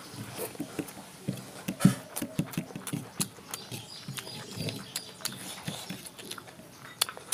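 Close-up eating sounds: wet chewing and lip-smacking from a mouthful of rice eaten by hand, with irregular soft clicks as fingers mix rice on a plate.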